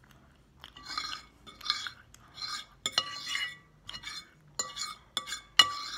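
Metal fork scraping and scooping food across a ceramic plate in repeated short strokes, about eight scrapes starting about a second in, with a few sharp clinks of metal on the plate.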